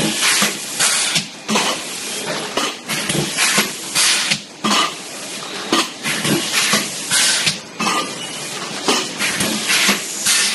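Disposable plastic cup making machine running, with repeated sharp hissing bursts about once a second over a steady mechanical clatter.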